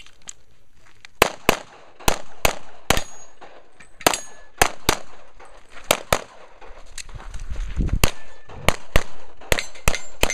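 Rapid pistol fire in a practical shooting stage: about twenty sharp shots, starting about a second in. The shots come in quick pairs and short runs with brief pauses between positions, faster near the end. Some hits ring on steel targets.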